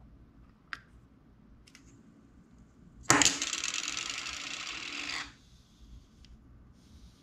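Plastic lens front cap dropped onto a hard desktop, hitting and then rattling and wobbling against the surface for about two seconds before it stops suddenly, like a dropped coin settling. A small click comes just under a second in.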